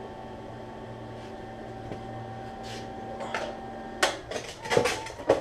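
Wire-feed welder arc crackling in several short bursts, starting about four seconds in, over a steady hum.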